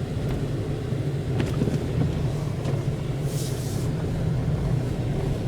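Steady rumble of a vehicle's engine and tyres heard from inside the cabin while driving on a slushy, snow-covered road, with a brief hiss a little past halfway.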